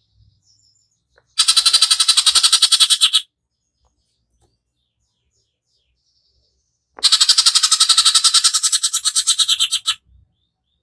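Cucak ijo (green leafbird) giving harsh, rapid-fire rattling 'tembakan' calls: two bursts of fast repeated notes, the first about two seconds long and the second, starting about seven seconds in, about three seconds long.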